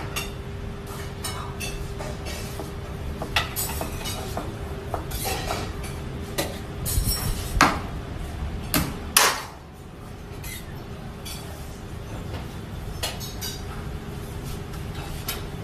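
A long kitchen knife slicing raw beef into steaks on a plastic cutting board: irregular sharp knocks as the blade strikes the board, loudest in a quick cluster around the middle. A steady kitchen hum runs underneath.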